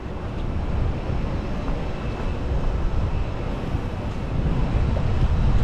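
Steady wind rumbling on the microphone over open sea, with waves sloshing against the hull, an even low rush with no distinct strokes.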